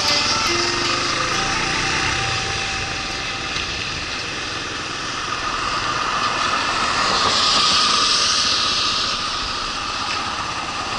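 Motorcycle riding on a wet road: the engine runs under a steady rush of road and wind noise, swelling and easing a little in level. A guitar tune fades out in the first couple of seconds.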